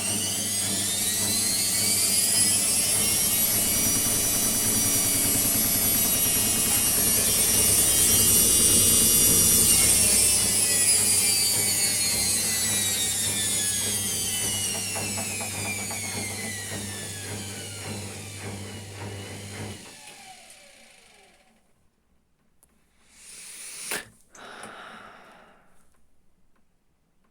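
Washing machine motor and drum running up into a spin: a whine rising in pitch over the first few seconds, holding steady for about seven seconds, then falling as the drum slows and stops about twenty seconds in. A faint knock follows a few seconds later.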